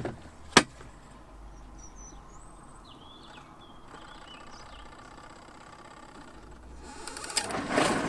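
Portable twin-tub washing machine: the plastic lid shuts with one sharp click about half a second in, and near the end the wash motor starts up and runs with a steady mechanical hum.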